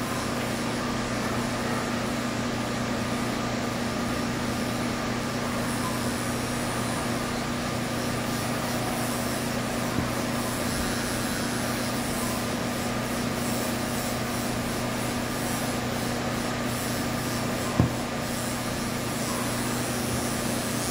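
Cordless electric pet clipper running steadily with a constant hum while shaving a cat's matted coat. A faint tap about ten seconds in and a sharper one near the end.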